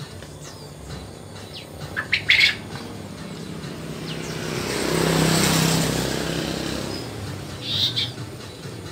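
Asian brown flycatcher giving short, high chirps, loudest in a quick cluster about two seconds in and again near the end, with fainter calls between. In the middle a passing vehicle's hum swells and fades under them.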